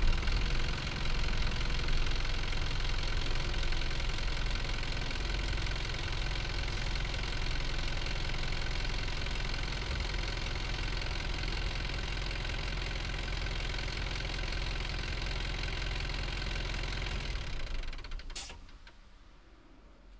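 Hino Liesse bus's J05D four-cylinder diesel engine idling steadily, then switched off near the end, its sound dying away with a single click as it stops.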